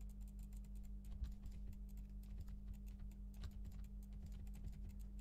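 Quick, irregular clicking of a computer mouse and keyboard as mesh faces are shift-clicked one by one, over a faint steady low hum.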